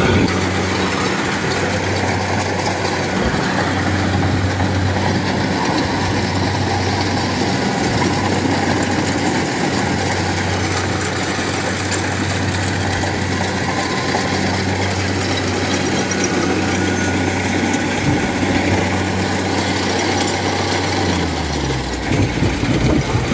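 Tracked rice combine harvester's diesel engine running steadily under load as it cuts and threshes rice, a constant hum with mechanical noise from the cutting and threshing over it. Near the end the engine note falls in pitch.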